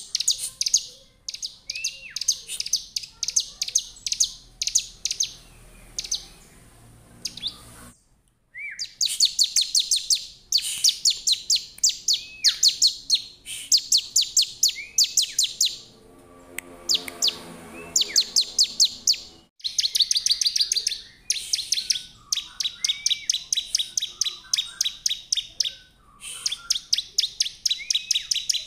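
Ciblek (a prinia) singing: rapid trains of sharp, high ticking chirps, about eight to ten a second, broken by short pauses, with an occasional short downward-slurred whistle.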